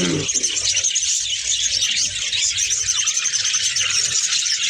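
A large colony of budgerigars chattering and chirping all at once, a dense, unbroken twittering of many birds.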